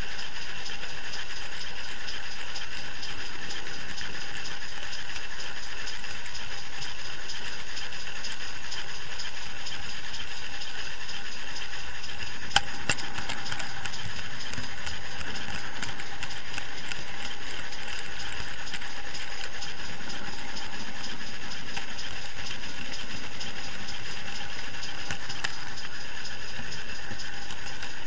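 Steady running noise of a model-railway camera truck rolling along the track as a sound-fitted Pannier tank locomotive pushes it, with one sharp click about halfway through.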